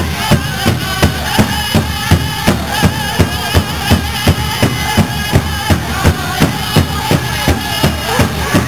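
Pow-wow drum group: a large drum struck in a steady beat, about two and a half strokes a second, with the singers' high wavering chant over it.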